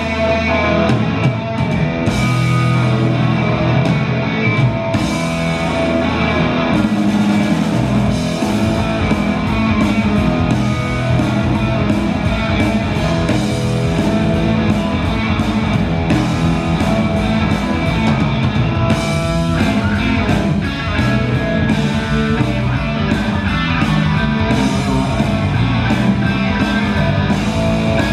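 Live blues-rock instrumental by a rock band: two overdriven electric guitars playing riffs and lead lines over bass guitar and drum kit. A low bass note is held at first, and the full drum beat with steady cymbals comes in about eight seconds in.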